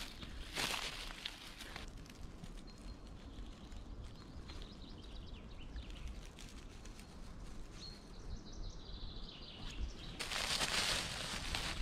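Dry pine needles and leaf litter rustling and crackling under a hand as a mushroom is pulled from the forest floor, with a louder burst of rustling near the end. Birds chirp faintly in the background.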